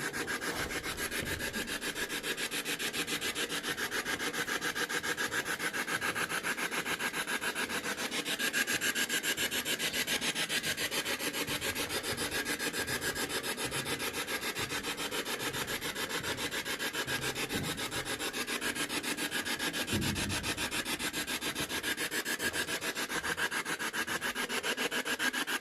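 Spirit box sweeping through radio stations: rapid, even, choppy static, with no voices coming through.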